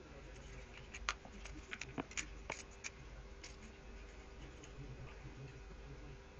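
A handful of light clicks and taps, bunched between about one and three and a half seconds in, over a low steady hum.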